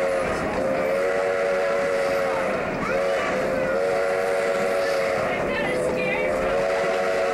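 Steam whistle of Sierra Railway No. 28, a Baldwin steam locomotive, blowing long blasts with short breaks between them and a brief toot about three seconds in, as it approaches a road grade crossing. Beneath it is the steady noise of the moving train.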